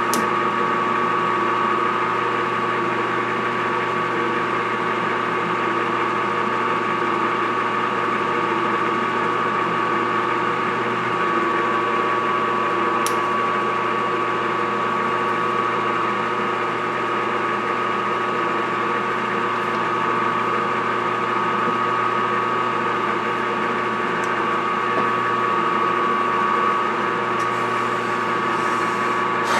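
Metal lathe running steadily during threading passes on a stainless steel shaft, a constant motor and gear-train hum with a steady whine. A single light tick about halfway through.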